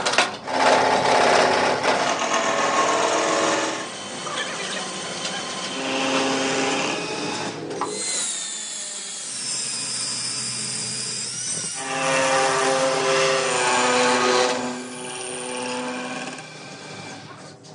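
Power tools running in several separate stretches, each starting and stopping abruptly, with a motor whine that shifts in pitch between them.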